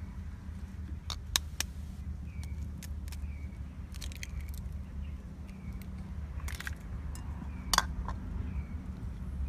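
Eggs being cracked with a knife over a bowl: a handful of sharp clicks and taps of shell on blade and china, the loudest about eight seconds in, over a steady low hum.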